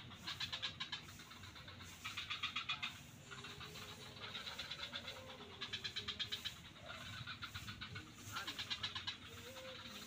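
Frogs calling in a swamp: about six rattling croaks, each a quick train of pulses under a second long, over a steady background chorus.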